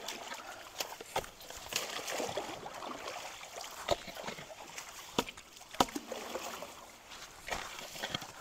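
Creek water sloshing and splashing around people wading knee-deep and pulling sticks and brush out of a clogged culvert. Several sharp snaps and knocks come from the branches being handled.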